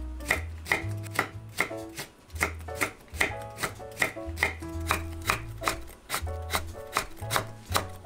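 Knife chopping on a cutting board in an even rhythm of about two to three strokes a second, over soft background music.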